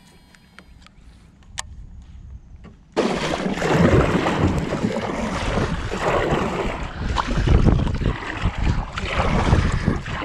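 Paddling a sit-on-top kayak: paddle strokes in the water with wind buffeting the microphone, a loud rough rush with uneven low surges. It starts suddenly about three seconds in; before that there are only a few faint clicks.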